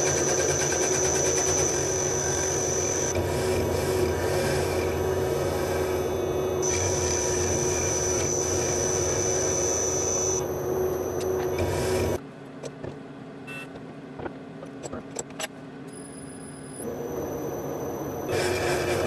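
Metal lathe running and facing the end of an aluminium bar, a steady machine hum with a high whistle that cuts in and out. About twelve seconds in the sound drops suddenly to a quieter spell with scattered clicks, and the machine sound comes back near the end.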